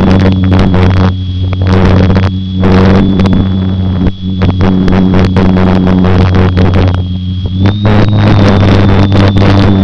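Electric motor and propeller of a GWS Slow Stick RC plane, heard from the onboard camera, running steadily in flight: a low hum with a thin high whine, broken by repeated gusts of noise on the microphone. About eight seconds in the pitch steps up slightly as the throttle is opened a little.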